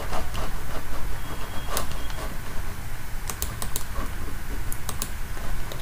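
Scattered clicks and key taps at a computer keyboard and mouse, a few at a time, over a low steady hum.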